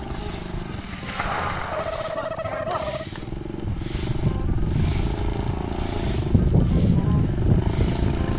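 Small motorcycle engine approaching and slowing to a stop, growing louder through the second half. Under it, regular scratchy strokes of a stick broom sweeping dirt, about two a second.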